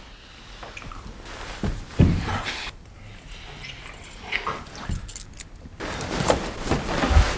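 Several irregular knocks and thumps, the loudest about two seconds in, with rustling noise between them.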